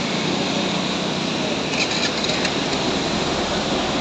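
Steady rushing road and wind noise of a vehicle travelling, with a few faint light rattles about two seconds in.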